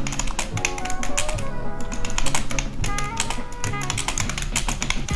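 Typing on a Tecware Phantom RGB mechanical keyboard with Outemu Brown tactile switches: quick, irregular key clicks over background music.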